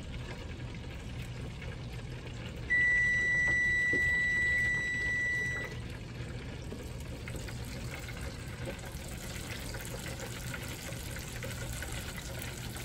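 Cod nuggets frying in a Farberware electric deep fryer: a steady sizzling bubble of hot oil. A little under three seconds in, a timer gives one steady high beep lasting about three seconds, signalling that the frying time is up.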